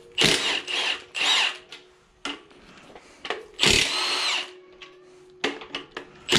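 Milwaukee Fuel cordless power tool spinning in short bursts on the bearing cap bolts of a Ford 8.8 rear differential, loosening them. It gives three quick bursts at first, then one longer burst of about a second near the middle, with light clicks in between.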